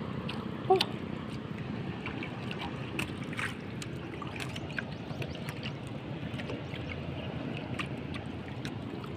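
Steady low wash of water against a small outrigger boat's hull, with light wind noise and scattered faint clicks as a fishing handline is hauled in by hand. A brief louder sound comes under a second in.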